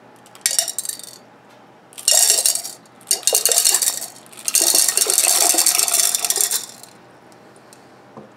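Colourful glass beads poured from a jar into a tall glass vase of water, clattering and clinking against the jar and vase in four bursts, the last and longest lasting about two seconds.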